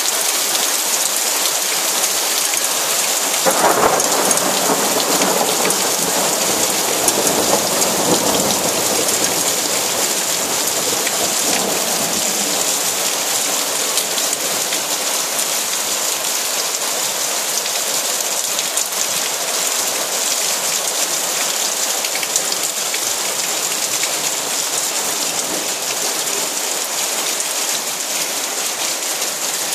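Heavy rain pouring steadily onto flooded paving. A roll of thunder rumbles in about three and a half seconds in and dies away over the next several seconds.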